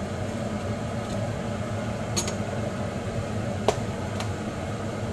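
Butter knife spreading butter on toast, then clinking once, loudest, when it is set down on a ceramic butter dish, with a couple of lighter clicks around it. A steady appliance hum runs underneath.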